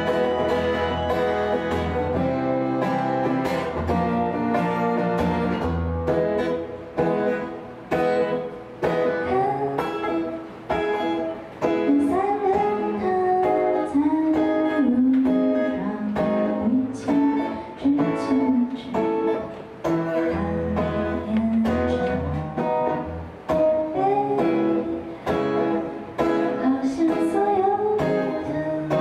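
A woman singing a song to her own accordion, with an acoustic guitar strumming alongside. Held accordion chords fill the first few seconds, then the guitar settles into a steady strummed pulse under the gliding vocal line.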